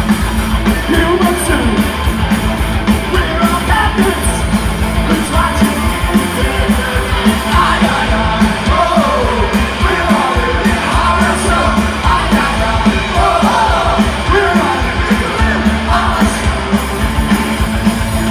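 Punk rock band playing live at full volume: vocals over electric guitars, bass and drums with a steady beat.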